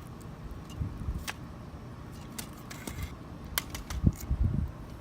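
Old truck horn's plastic housing burning, with scattered sharp crackles and ticks over a steady low rush. A few loud low thumps come about a second in and again near the end.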